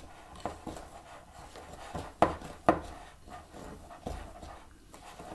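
Wooden spoon stirring a thick mixture of butter, peanut butter and sugars in a mixing bowl, creaming it by hand. The spoon scrapes and knocks irregularly against the bowl, with two sharper knocks about half a second apart a couple of seconds in.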